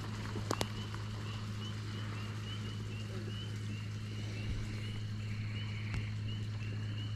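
Frogs calling: a steady chorus of short, high peeps repeating about three times a second. Under it runs a steady low hum, and a couple of sharp clicks come about half a second in.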